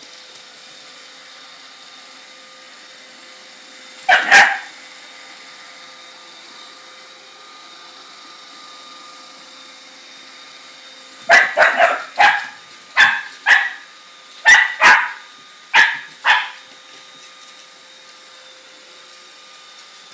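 Scottish Terrier puppy barking at a running iRobot Roomba 560 robot vacuum: a short double bark about four seconds in, then a quick string of about ten barks over some five seconds. The robot vacuum's steady hum runs underneath.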